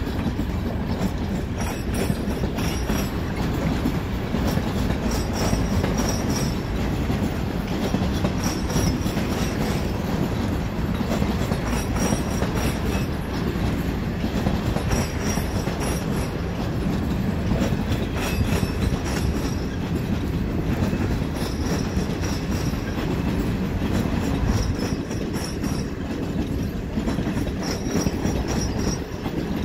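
Regional passenger train of coaches rolling through a station yard: a steady rumble of wheels with clacks over rail joints and points, and brief high wheel squeals now and then.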